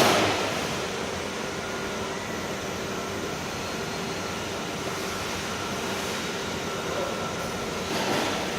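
Drilling machine running steadily with a constant hum and whir, with a short louder noisy burst at the start and another near the end.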